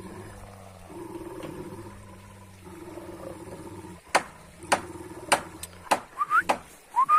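Kangal shepherd dogs growling in low rumbles, each a second or so long. About four seconds in, a quick run of sharp barks starts, mixed with short rising cries near the end.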